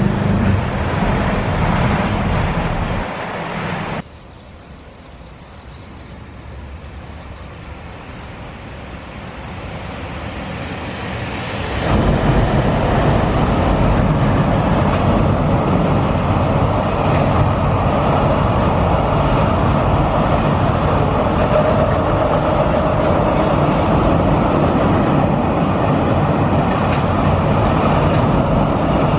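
Freight train hauled by a JR Freight EF210 electric locomotive. The rolling noise drops away abruptly early on. Another train is then heard approaching and growing steadily louder, until about twelve seconds in it passes close by, and the wagons roll past with steady wheel clatter to the end.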